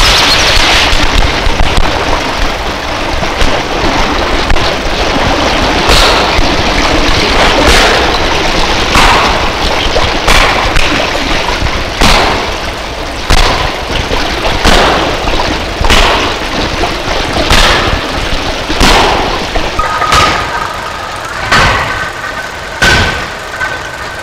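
Experimental noise music: a loud, dense wash of rumbling noise, with sharp hits recurring about every second and a half. Two steady high tones come in near the end.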